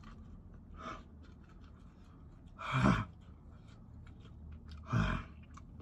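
A man blowing out hard through pursed lips, three short heavy breaths about two seconds apart, the first faint. He is trying to cool a mouth burning from extremely hot chicken-wing sauce.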